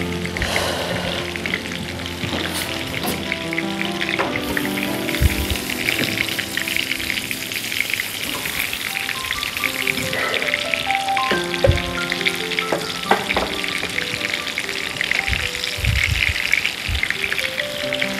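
Breaded chicken fingers sizzling steadily as they fry in oil in a frying pan, turned now and then with metal tongs, which give a few light knocks.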